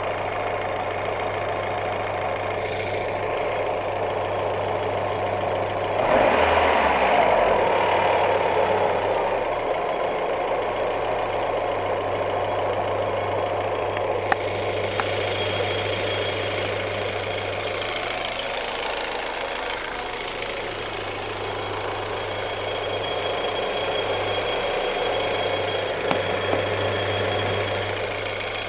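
Car engine idling with a squeak coming from the air-conditioning compressor. The sound swells louder for a few seconds about six seconds in, and a thin high whistle-like tone runs through the second half.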